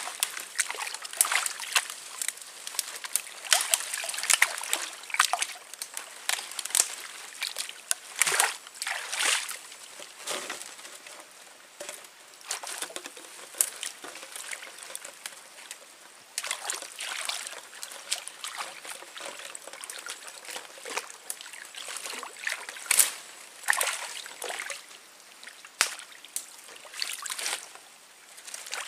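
Shallow canal water sloshing, splashing and trickling in irregular bursts as someone wades and works a fish trap into place.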